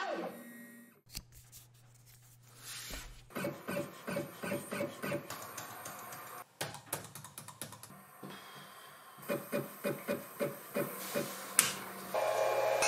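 A run of sharp clicks and taps from laptop keys and a mouse, then louder clicks as the power-board switches are flicked on one after another. Near the end a steady whirring noise starts up as the CNC router's equipment powers on.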